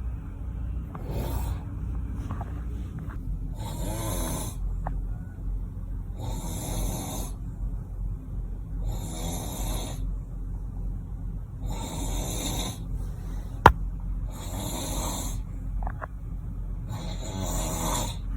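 A man snoring in his sleep, one hissy snore about every two and a half seconds, each lasting under a second, over a steady low hum. A single sharp click comes about two-thirds of the way through.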